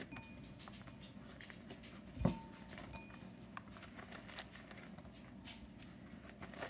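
Quiet scraping and small clicks of seeds being dug out of a hollowed crookneck squash, with one louder knock about two seconds in.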